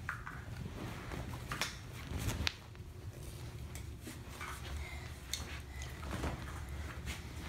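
Scattered light clicks and knocks of objects being handled, over a steady low rumble.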